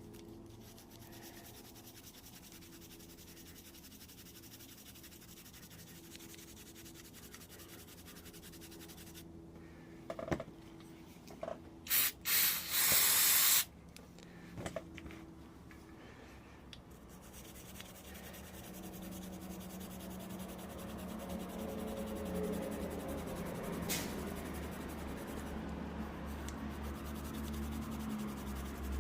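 Aerosol cleaner spraying from a can in two bursts about twelve seconds in, a very short one and then one of about a second and a half, typical of throttle body cleaner being sprayed into an electronic throttle body.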